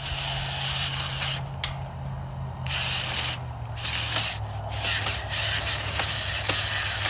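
Cordless drill running continuously as it drives a fastener into a steel treestand tower frame, with a rasping noise on top. About four seconds in, the motor's pitch drops slightly, and the rasping stops and starts a few times.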